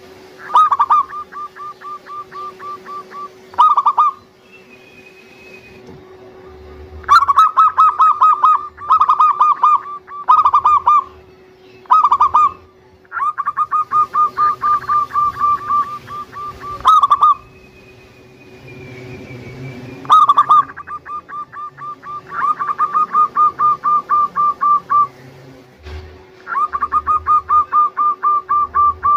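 Zebra dove (perkutut) cooing: repeated phrases of quick staccato coo notes, each phrase usually opening with a louder note, with short pauses between phrases.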